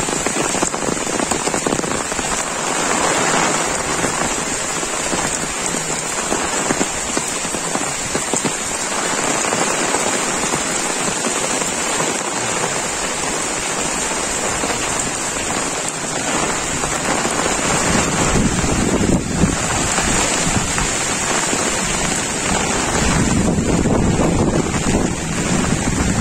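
Heavy monsoon rain falling steadily on rice paddies and vegetation. A low rumble joins about two-thirds of the way in.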